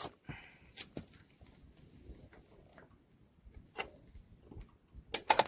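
Hand tools clicking faintly against metal while a shock stop bolt comes off, with a quick cluster of loud metal clinks and a brief high ring near the end.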